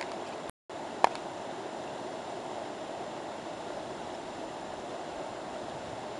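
Steady rush of whitewater rapids on a mountain river, broken by a brief dropout near the start and a single sharp click about a second in.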